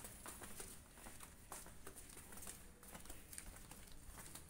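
Faint, irregular footsteps tapping on a tiled corridor floor over a low background hiss.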